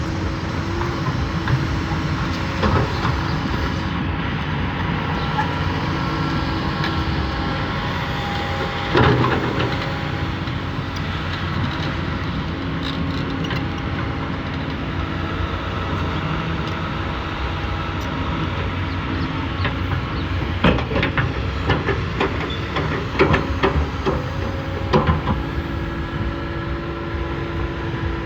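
Diesel engine of heavy tracked earthmoving equipment running steadily, with sharp metallic clanks about a third of the way in and again in a cluster near the end, typical of steel tracks and undercarriage knocking.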